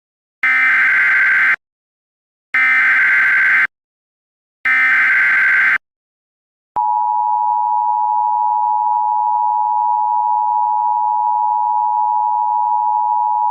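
Emergency Alert System activation: three one-second bursts of warbling SAME header data tones, a second apart, then about halfway through the steady two-tone EAS attention signal (853 and 960 Hz together), which holds without change. It marks the start of an emergency alert, here a flash flood warning.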